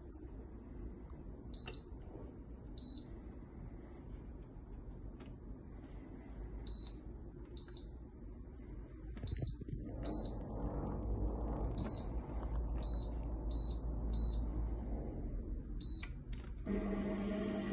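Tefal blender's control panel giving about a dozen short high beeps as its buttons are pressed. Near the end the blender starts running with a sudden, loud, steady motor sound.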